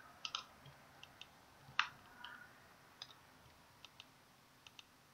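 Faint clicks of a computer mouse's buttons, several in quick pairs, roughly one every second; the loudest comes a little under two seconds in.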